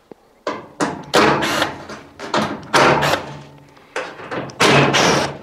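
Cordless drill driver undoing the screws of a tumble dryer's steel back panel, in several short bursts with pauses between.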